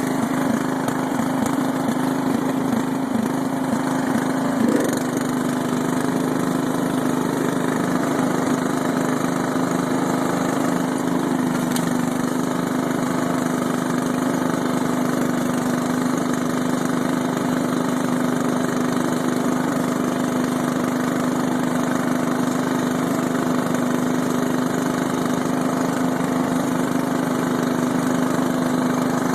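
The 17 hp Briggs & Stratton engine of a Scotts/John Deere S1742 lawn tractor runs steadily, already warm. Its pitch settles slightly lower about five seconds in.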